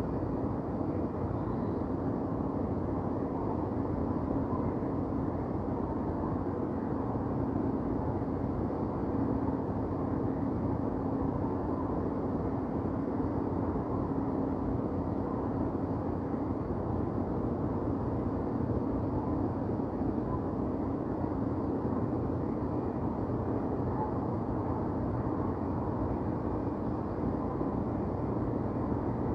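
Steady low rumble of downtown city ambience, distant traffic blending into a constant wash, with a faint steady hum that fades out about three quarters of the way through.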